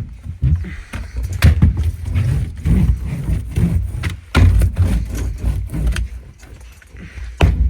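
Irregular knocks and thumps with a low rumble between them, as sound-deadening mat is handled and pressed down onto a car's sheet-metal floor pan.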